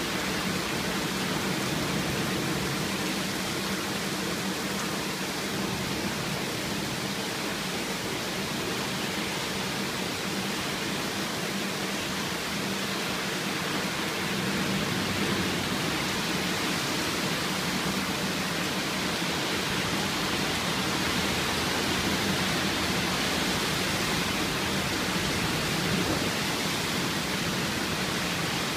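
Heavy rain falling steadily in a thunderstorm, an even hiss with no breaks.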